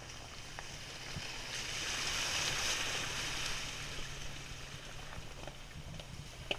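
A Jeep Wrangler's tyres wading slowly through a shallow muddy creek. The water swishes and splashes loudest a couple of seconds in, over the low, steady hum of the engine at low revs. A sharp knock comes near the end.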